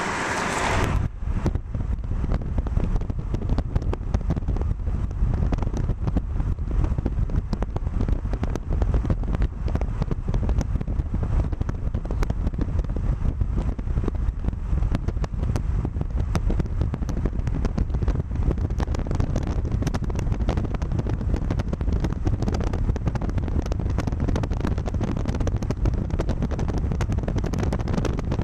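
Wind buffeting the microphone from a moving car, a dense low rumble with crackle over the road noise, starting abruptly about a second in.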